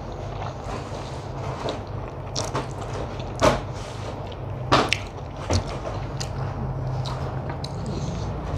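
Eating by hand: fingers mixing rice with banana flower curry on a ceramic plate, and chewing, giving soft squishy sounds with three sharp clicks near the middle, over a low steady hum.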